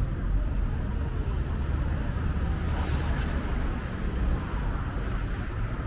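Steady low outdoor background rumble, with a faint click about three seconds in.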